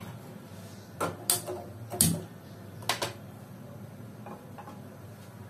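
Sharp clicks and knocks of a frying pan being handled and set on a gas stove's grate: four loud ones in the first three seconds, then two faint ones.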